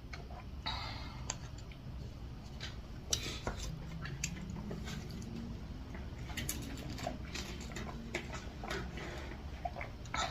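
Mukbang eating sounds: scattered small clicks and taps of utensils against dishes, with a few brief scrapes and soft chewing noises.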